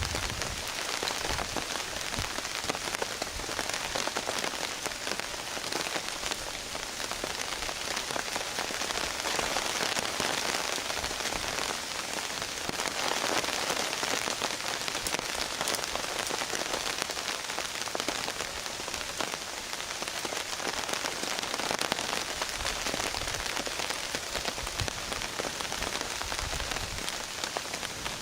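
Steady rain falling on a tarp overhead: a dense, even hiss of many drops with no break.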